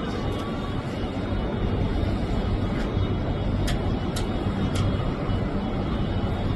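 Steady low drone of an aircraft engine, with three sharp clicks about half a second apart near the middle.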